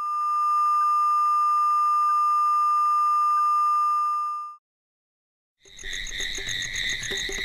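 Steady single-pitch reference test tone played with colour bars, cutting off after about four and a half seconds. After about a second of silence, music begins near the end.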